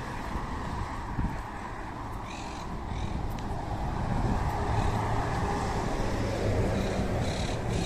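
Street traffic ambience with a road vehicle's engine humming nearby, growing louder in the second half, and birds chirping briefly twice.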